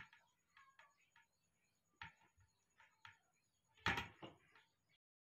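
Faint, scattered knocks and rustles from baby monkeys scrambling about on a carpet among a metal tray and a steel thermos flask. The loudest is a short cluster of knocks about four seconds in, and the sound cuts off suddenly shortly after.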